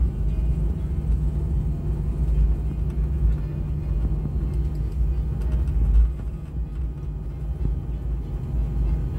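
Airliner cabin noise while taxiing: a steady low rumble from the idling jet engines and the wheels rolling on the taxiway, easing a little about six and a half seconds in.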